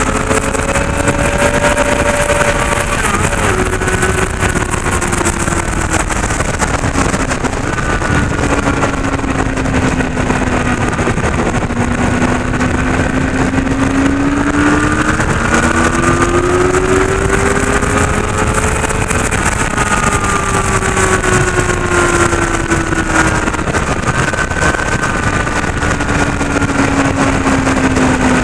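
Onboard sound of a Honda CBR600F sport bike's inline-four engine at speed, its note rising and falling as it accelerates out of and brakes into corners, under steady loud wind rush on the camera microphone.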